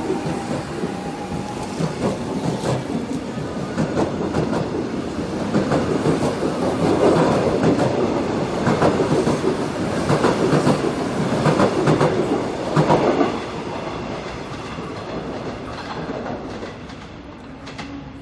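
Seoul Metro electric subway train running past close by, its wheels clacking over the rail joints in quick irregular runs. The clacking builds to its loudest about halfway through, then fades away toward the end.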